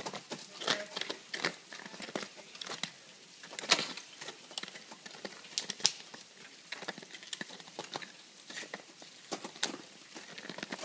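Ice axe picks and crampon points striking and kicking into frozen waterfall ice: a string of irregular sharp ticks and crunches, the loudest about a second in and around four and six seconds in.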